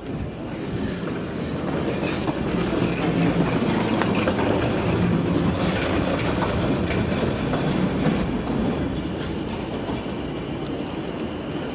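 A vehicle rumbling past with a rattling, clicking clatter. It grows louder over the first few seconds and eases off near the end.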